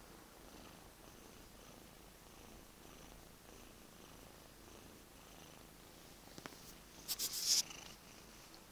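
Domestic cat purring steadily and softly; about seven seconds in, a brief burst of rustling.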